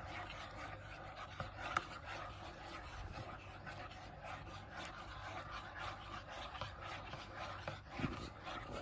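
Metal spoon stirring hot milk in a ceramic mug, scraping and tapping against the bottom and sides in a steady run of small strokes, with one sharper clink just under two seconds in.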